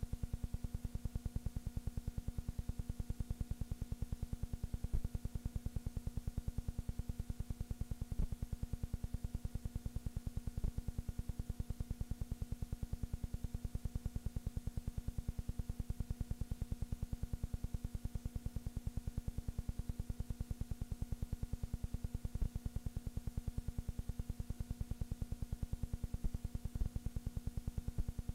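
Film projector running: a steady hum with a rapid, perfectly even ticking beneath it, and an occasional faint click.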